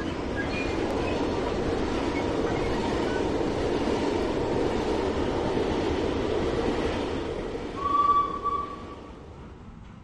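HO-scale model train running along the layout track: a steady rumble of motor and wheels on the rails. About eight seconds in there is a brief high tone, the loudest moment, and then the sound dies away.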